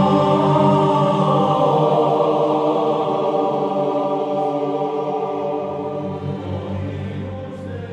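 Outro music with long, held choir-like chanting voices, slowly fading out.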